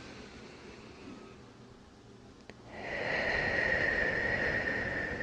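Close-miked deep breathing: one breath fades out over the first second or so, a small click comes about two and a half seconds in, then a long, much louder deep breath with a faint whistling tone begins and runs on.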